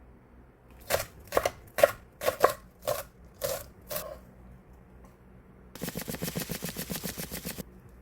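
Kitchen handling sounds: a series of about seven sharp knocks with a hollow ring, followed by a fast, even rattle of many ticks lasting under two seconds.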